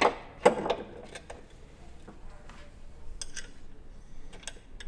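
Hand work on parts at the car's strut tower under the hood: two sharp knocks near the start, then scattered light clicks and taps.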